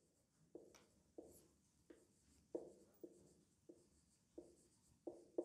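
Faint squeaks of a marker on a whiteboard as words are written, a short squeak for each stroke, roughly one or two a second.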